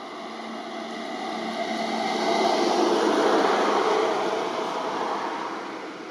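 A vehicle passing by: a rising and then fading rush of road noise, loudest about three to four seconds in.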